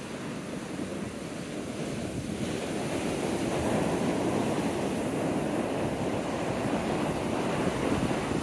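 Rough, storm-driven ocean surf: waves breaking offshore and white water rushing up the sand in a steady wash of noise. It grows louder a couple of seconds in as a sheet of foam runs up the beach.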